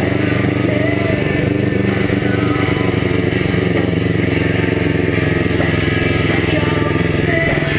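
Kawasaki Ninja 250 parallel-twin engine in an off-road mini buggy, running at a steady speed.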